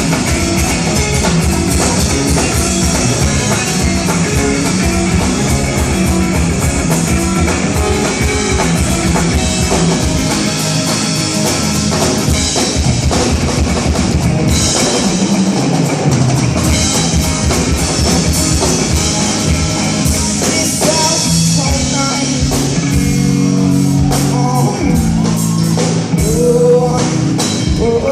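A rock band playing live, with drum kit and electric guitar, and some singing.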